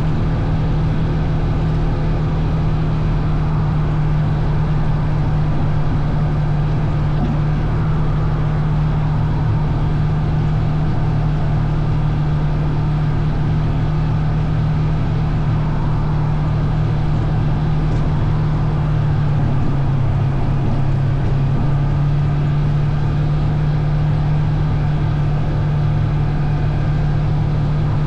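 Vehicle engine running at a steady speed throughout, with a slight dip in engine speed about twenty seconds in.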